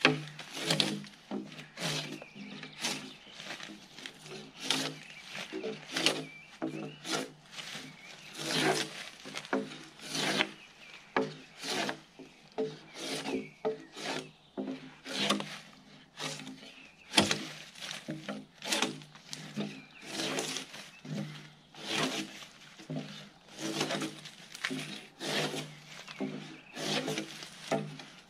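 Gränsfors Bruks drawknife peeling bark off a log, a rasping scrape on each pull stroke, repeated about once a second.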